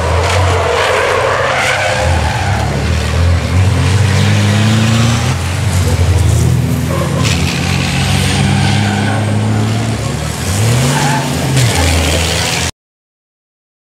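Turbodiesel racing trucks running hard past at speed, their engine notes rising and falling through gear changes, with tyre and gravel noise. The sound cuts off suddenly about a second before the end.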